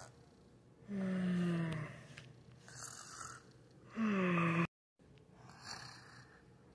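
Pretend snoring voiced by a person: two drawn-out snores that each slide down in pitch, with a breathy in-breath between them. The second snore cuts off suddenly.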